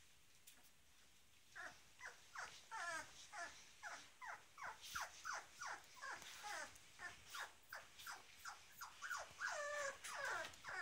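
Four-week-old puppies whimpering: a quick run of short, high whines, each falling in pitch, about two a second, starting about one and a half seconds in, with a few longer, wavering whines near the end.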